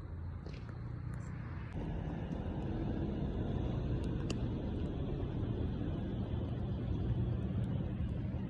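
Steady low rumbling noise that grows louder a little under two seconds in, with a few faint clicks over it.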